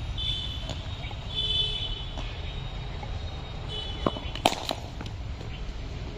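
Two sharp knocks about four seconds in, the second and louder one the crack of a cricket ball struck by a bat in the practice nets. Under them a steady low rumble, with a few faint high chirps.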